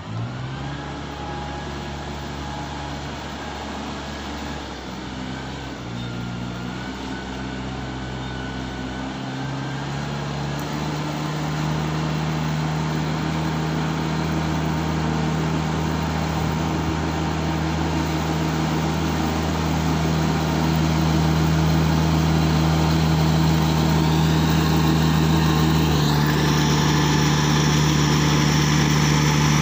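Riding rice transplanter's engine running steadily as it drives through the flooded paddy, growing louder as it comes closer.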